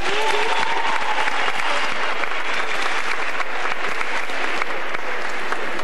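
Large audience applauding and cheering, a dense steady clatter of many hands, with a voice calling out briefly near the start.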